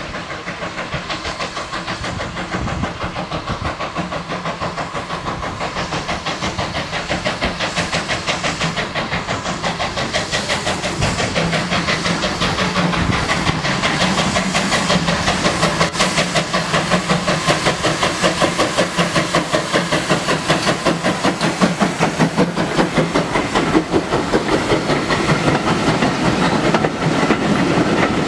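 Steam train approaching, its rhythmic beat growing steadily louder, until the coaches run past with their wheels clattering over the rails near the end.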